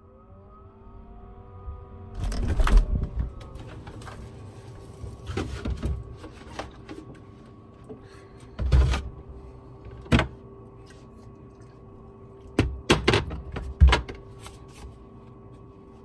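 Refrigerator door opened and things on its shelves handled: a series of clunks and knocks as bottles and containers are picked up and set back, several close together near the end, over a steady hum.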